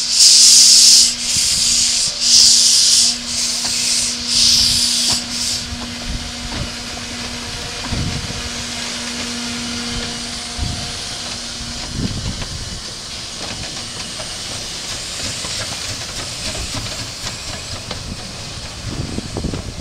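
Narrow-gauge steam tank locomotive Høland working light engine: about five loud exhaust chuffs roughly a second apart, which stop about five seconds in, after which it drifts with a steady hiss of steam and a few low knocks.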